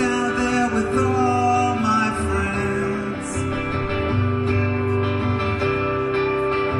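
Solo electric guitar played live through the PA: slow, sustained, ringing chords and notes.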